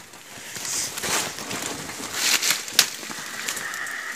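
Dry leaves, twigs and brush crackling and rustling as someone pushes through forest undergrowth on foot, with a sharp snap of a stick about three seconds in.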